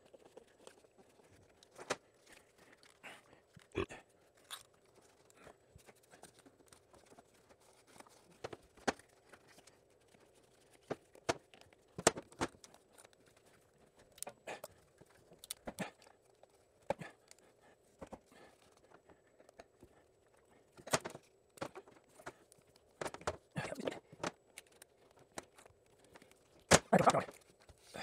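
Scattered, irregular clicks and knocks of a ratchet and strap wrench being worked against a stuck, over-torqued motorcycle oil filter, over a faint steady hum, with a louder cluster of knocks near the end.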